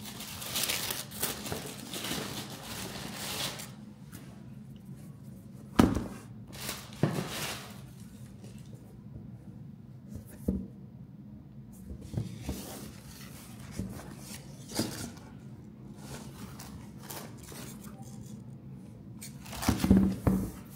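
Tissue paper rustling and crinkling as a sneaker box is unpacked. Then come scattered sharp knocks and handling noises as the sneakers and box are moved about, the loudest knock about six seconds in.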